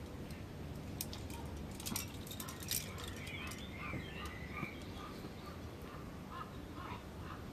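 Metal climbing gear clinks and jingles in a few sharp clicks. Alongside it a bird calls in short notes repeated about three times a second, with a wavering higher call in the middle.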